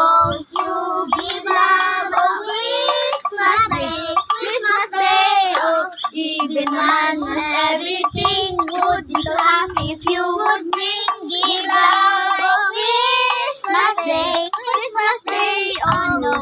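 Children singing a Christmas carol together, with sharp taps of a stick on an improvised tin-can drum keeping time.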